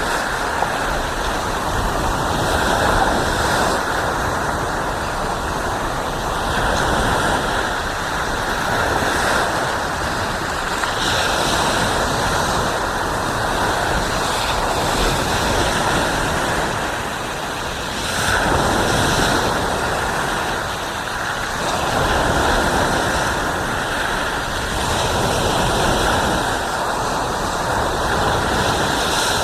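Ocean surf washing onto a sandy beach: a continuous rushing wash that swells and eases every few seconds as waves break and run up.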